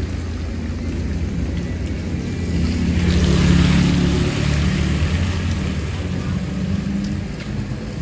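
Heavy rain falling steadily, with a low rumble underneath that swells about three to four seconds in and eases off toward the end.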